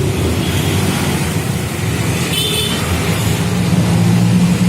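A motor running with a steady low hum that grows louder near the end, with a brief high squeak about two and a half seconds in.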